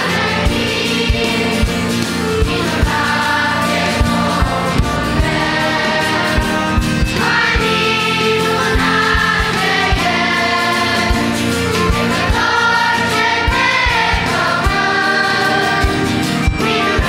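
Children's choir singing a Romanian Christian hymn, with piano, accordion and drums keeping a steady beat. About seven seconds in, the choir moves from the verse into the refrain.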